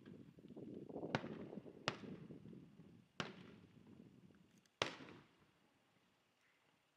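Fireworks going off: four sharp bangs over a rough, noisy rumble that builds and then dies away about five seconds in.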